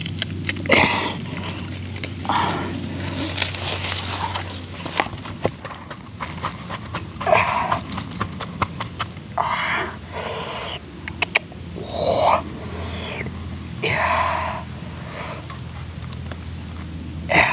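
Hands squeezing and packing shredded plant stalks in a wooden bowl and pressing eels into it: short crisp rustles and crunches every second or two, with small clicks between them.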